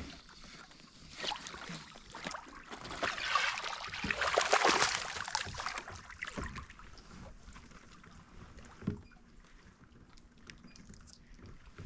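A hooked bass splashing and thrashing at the surface beside a kayak for a few seconds, then quieter handling clicks and one sharp thump as it is lifted aboard.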